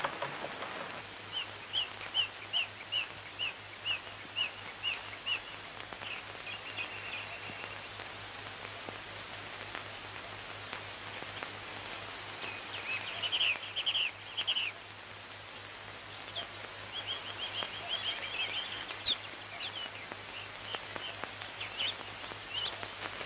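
Small bird calling in series of short high chirps, about two a second at first, with quicker chattering runs later. Under it run the steady hiss and low hum of an old film soundtrack.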